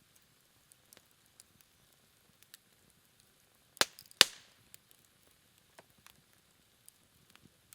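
Low campfire crackling faintly, with two sharp pops from the burning wood less than half a second apart about midway.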